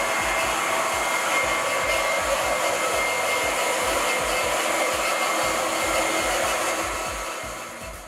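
Small electric transfer pump running steadily, circulating vinegar through a tankless water heater to flush out hard-water scale. It fades out near the end.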